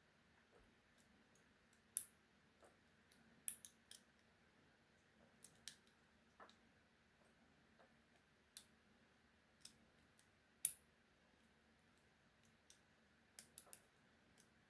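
Sparse, irregular faint clicks of a steel lock pick working the pins of a Dekton Iron padlock's brass cylinder under a tension bar, with a few sharper ticks among them.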